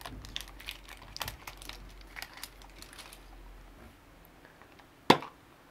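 Wrapper crinkling as it is peeled off a plastic surprise-egg capsule, then a single sharp plastic snap about five seconds in as the capsule is pulled open.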